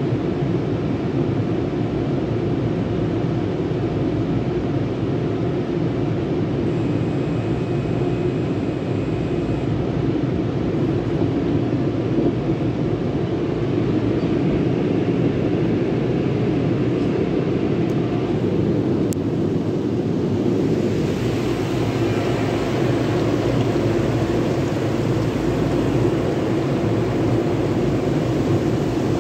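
Steady roar of tunnel car wash machinery heard from inside the car. From about two-thirds of the way through, a hiss of water spray hitting the car is added.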